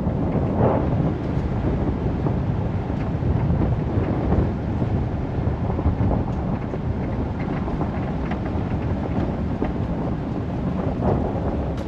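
A vehicle driving on a dirt and gravel road: a steady rumble of tyres and engine, with scattered light ticks.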